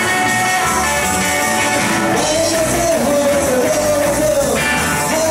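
Live rock-and-roll band playing: electric guitars and drum kit, with a lead melody line that slides up and down in pitch over a steady beat.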